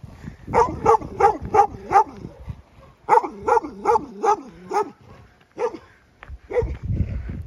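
Dog barking at a passer-by: a quick run of about five barks, a second run of about six, then two single barks near the end.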